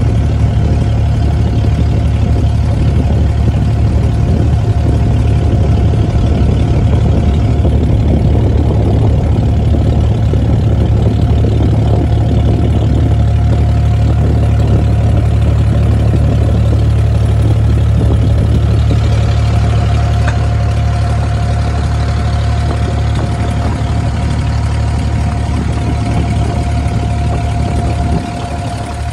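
A small wooden boat's engine runs steadily under way, a low hum with a steady higher whine on top, over the rush of water along the hull. It eases slightly about two-thirds of the way through and again near the end.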